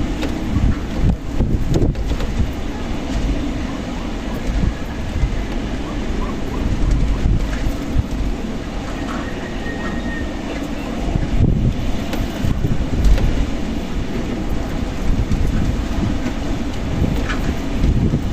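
Strong desert wind gusting, a heavy low rumble from the wind buffeting the microphone, swelling and easing unevenly.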